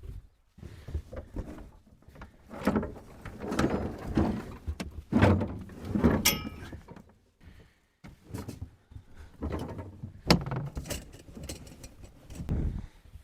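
Camping gear being handled and packed: irregular thuds, knocks and rustling, with a couple of sharp clicks about six and ten seconds in.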